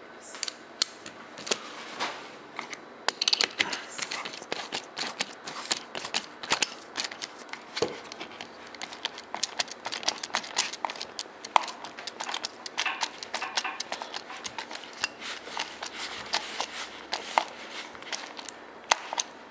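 Rapid, uneven clicking of a ratchet driving a hex-bit screw into a rifle's plastic forend, with small knocks of the tool and stock being handled. The screw is being run up tight, biting into the plastic.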